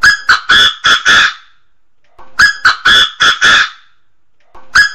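Chinese francolin calling: two full phrases of five loud, harsh notes each, about a second and a half long, and a third phrase starting near the end.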